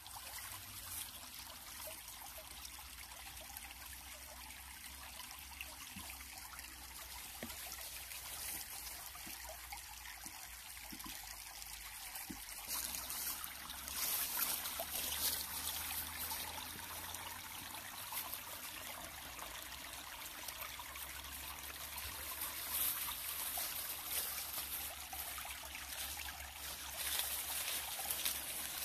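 Shallow stream trickling and babbling over stones and small branches, steady throughout and louder from about halfway through.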